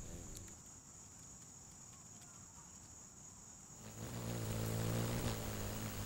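Insects trilling steadily in one continuous high note. About four seconds in, a louder, steady low hum comes in over it.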